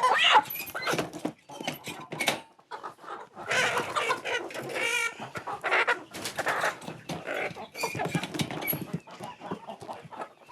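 Agitated chickens clucking and squawking as they are caught and handled, with one wavering squawk about five seconds in. Scuffling and knocking sounds run alongside.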